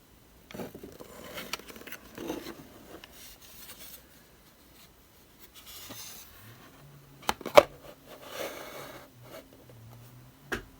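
Hands handling a model truck and its packaging: rustling and scraping, with a few sharp clicks about seven and a half seconds in, the loudest, and one more near the end.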